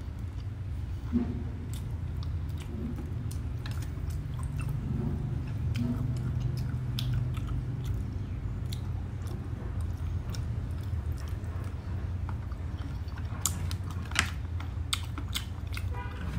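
Close-miked chewing of crispy roast pork, with wet mouth sounds and small crunches, over a steady low hum. A few sharper clicks come near the end as a fork scrapes and taps on the plate.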